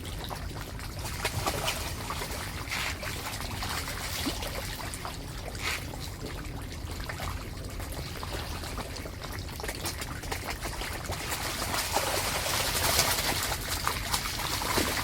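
Running water trickling and pouring steadily, with many small clicks and splashes.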